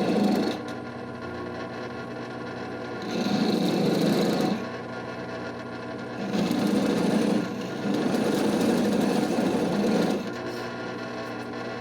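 Drill boring out a hole in a steel knife tang to make it round again, cutting in several bursts of a second or two each and quieter between.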